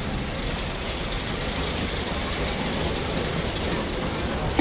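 Steady background rumble and hiss of a large outdoor crowd at a fireworks display, with no bang or whistle heard while a shell climbs.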